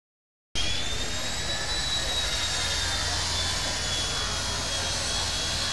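Large circular sawmill blade, powered by a steam engine, spinning free with no log in the cut: a steady high whine over a low rumble and hiss. It starts about half a second in.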